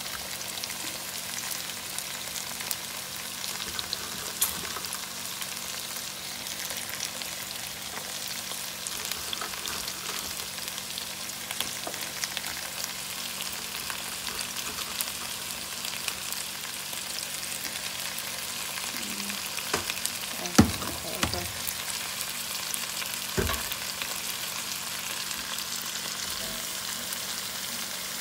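Hot Italian sausages and vegetables sizzling in a frying pan, a steady crackling hiss, with a few sharp knocks about two-thirds of the way through.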